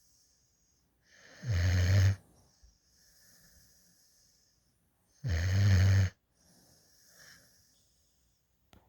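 Black Mouth Cur/Lab mix puppy snoring in deep sleep: two loud, low, buzzing snores about four seconds apart, each about a second long, with quieter hissing breaths between them.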